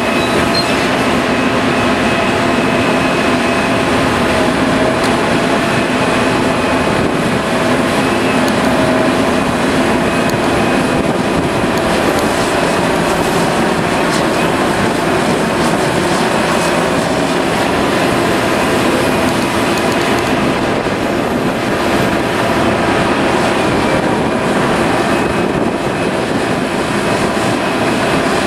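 Liebherr 974B hydraulic excavator working: a steady, loud drone of its diesel engine and hydraulics, with several whining tones on top.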